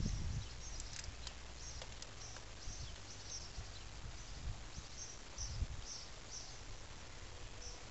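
Faint knocks and scrapes of a screwdriver undoing the screws of the idle air control valve on an EJ20 engine, with a few dull handling bumps. Over it, a small bird chirps over and over in short, evenly spaced notes, about two a second.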